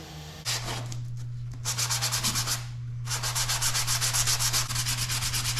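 A power sander starts about half a second in and runs with a steady hum, sanding wooden knife-handle material. The grinding comes in rapid, even pulses, with two short drops in the first three seconds before it settles in.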